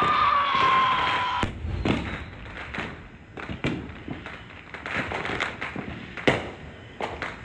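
Fireworks going off: a falling whistle that cuts off with a bang about a second and a half in, then scattered booms and pops of many fireworks, the loudest about six seconds in.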